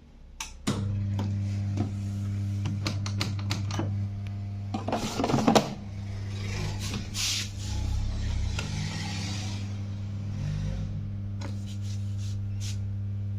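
Indesit washing machine switching on, with a steady electric hum that starts abruptly about a second in. Scattered clicks and a couple of bursts of hiss, like water rushing, run through the hum.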